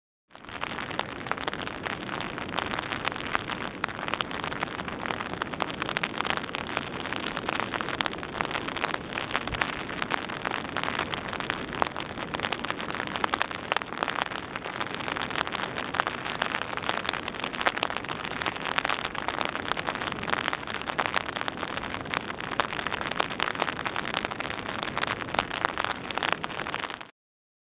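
Steady rain falling, a dense hiss full of small sharp drop ticks, that cuts off suddenly near the end.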